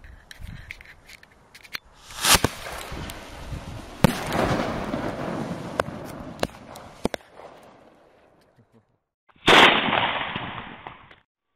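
Rocket motors failing on launch (catos). A loud bang about two seconds in is followed by several seconds of hissing and crackling with sharp pops, fading out. After a short quiet, a second loud rushing burst starts and cuts off suddenly.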